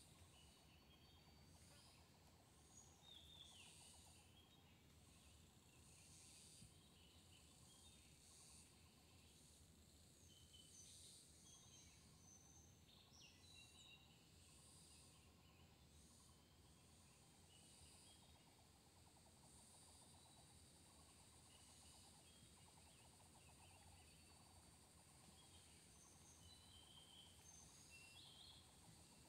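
Faint countryside ambience: scattered short chirps and calls of small birds over a low, even background noise. A steady high-pitched buzz sets in about two-thirds of the way through.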